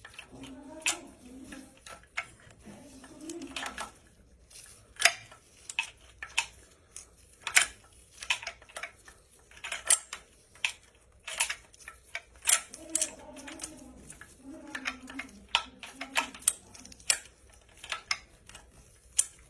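Irregular sharp metal clicks and clinks as a timing-chain sprocket on a Mercedes CDI diesel engine is turned and worked by hand to seat it on its shaft with the chain.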